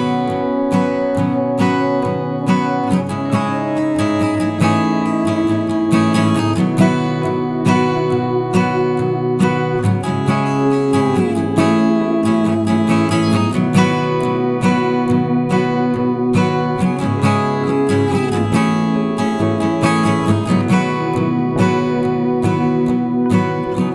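Background music: strummed acoustic guitar with sustained chords and sliding notes.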